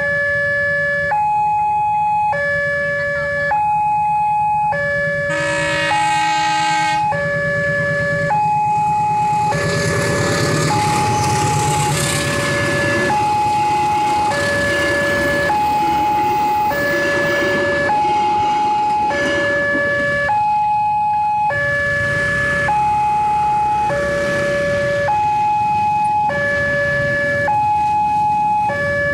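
Railway level-crossing warning alarm sounding continuously, an electronic chime alternating between two notes. A train horn sounds briefly about six seconds in. From about ten to twenty seconds in, a passenger train rumbles through the crossing, and motorcycle engines are running near the end.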